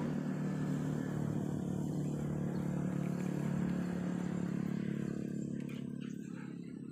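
A small engine running steadily at a low, even hum, easing off slightly about five seconds in.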